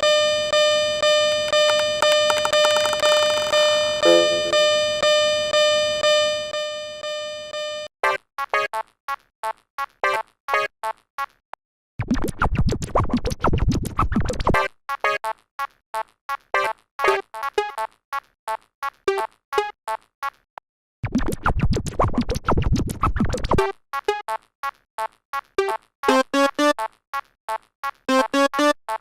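Synthesized level-crossing alarm bells ringing in a cartoon: a bright ringing tone pulsing about twice a second, then strings of short, quicker dings that change pitch. Two bursts of rushing noise, each about two and a half seconds long, cut in partway through and later on.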